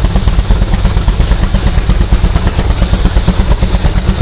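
Steam traction engine belted to a circular sawmill, its exhaust beating in a quick, even rhythm while it runs light and the saw spins free, just before the blade enters the log.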